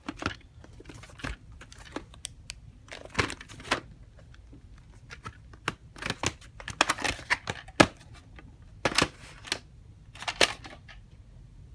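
A plastic clamshell VHS case being handled and opened, with scattered clicks and knocks of plastic as the cassette is taken out and turned in the hand, most frequent in the second half.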